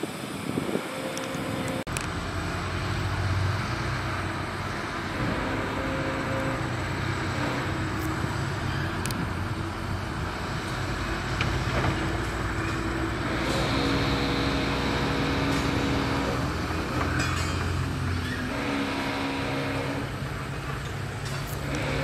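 Heavy diesel engine of earthmoving machinery running and working, its engine tone shifting every few seconds as the load changes, with a few sharp knocks.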